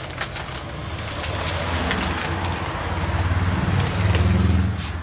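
Anti-static plastic bag crinkling and rustling as a motherboard is slid out of it. Under it runs a low engine drone that grows louder, is loudest about four seconds in, and eases off near the end.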